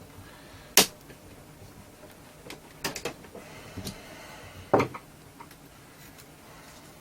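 Handling clicks and knocks from a small loudspeaker driver being worked by hand: its thin pressed-metal frame is bent to re-centre a detached magnet that catches the cone. There is a sharp click about a second in, a few more around three seconds, and the loudest knock near five seconds.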